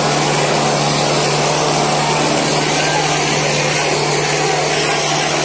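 Preet 6049 tractor's diesel engine working hard at a steady pitch while dragging a harrow, a loud unbroken rumble with a rough noisy edge.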